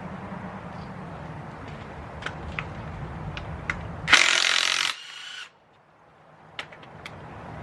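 Hand tools working on the front wheel's fasteners: scattered light clicks, then about four seconds in a loud rattling burst of tool noise lasting about a second, which dies down and cuts off suddenly.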